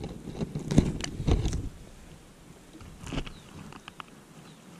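Leafy weeds being pulled and handled close to the microphone: rustling stems and leaves with a cluster of sharp snaps and knocks in the first second and a half, a few more around three seconds in, then softer rustling.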